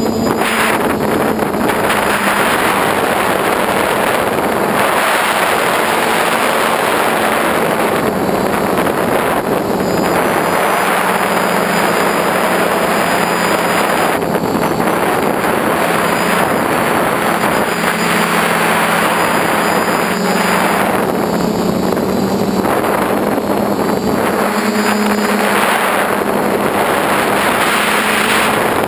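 Motors and propellers of a small FPV aircraft heard from its onboard camera, a steady buzzing drone whose pitch rises and falls a little with the throttle, mixed with wind rushing over the microphone.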